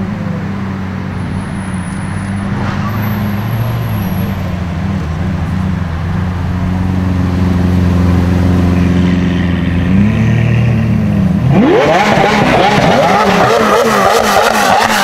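Lamborghini Aventador SV's V12 running steadily at low speed as it rolls by. About three quarters of the way through, the Novitec-tuned McLaren 720S's twin-turbo V8 revs hard and accelerates away, its pitch sweeping up sharply, with a loud crackle.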